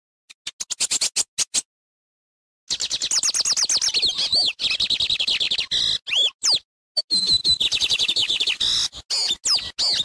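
Lined seedeater (bigodinho) singing: a short burst of quick high notes, then after about a second's pause a long, fast run of rapidly repeated chattering notes with a few slurred whistles, broken by brief gaps.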